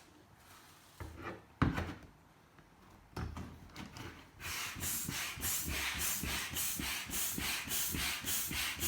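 A few knocks and clicks of the hand pump being handled and switched. Then, about halfway in, a steady run of pumping strokes, each a rush of air hissing through the hand pump into the inflatable kayak/paddle board.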